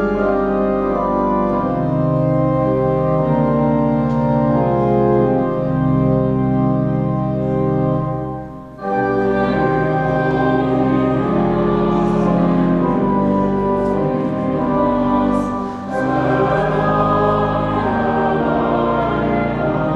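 Church organ playing sustained chords. About nine seconds in, after a brief break, singing voices join the organ in a hymn, pausing briefly between phrases near the end.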